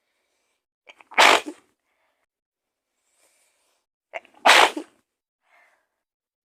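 A woman sneezing twice, about three seconds apart, each sneeze a sharp, loud burst with a short catch of breath just before it.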